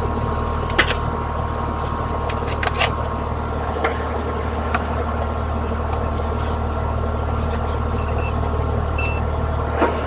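Outdoor AC heat pump condensing unit running: a steady compressor and fan hum, with a few light clicks and taps and two short high beeps near the end.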